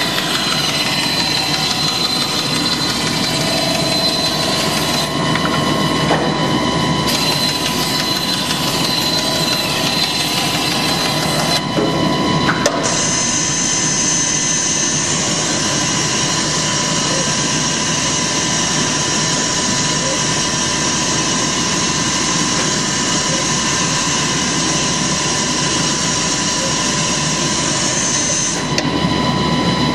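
CNC jigsaw's reciprocating blade sawing curved furniture-frame parts out of chipboard, over the steady running of the machine with a constant high whine. The sound shifts abruptly a few times.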